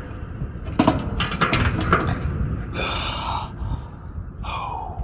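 Low wind rumble on the microphone, a few sharp metal clicks and knocks in the first two seconds, then two short rushing noises, likely hard breaths during heavy lifting.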